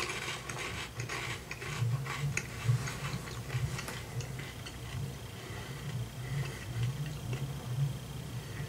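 A person chewing a crunchy puffed black bean veggie snack, steady crisp crunching close to the mouth. The crunches are densest in the first few seconds and thin out as the piece is chewed down.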